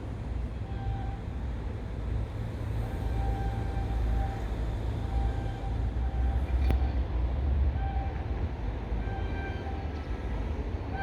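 Passenger train approaching with a steady low rumble, its horn sounding faintly in several separate blasts, one of them longer.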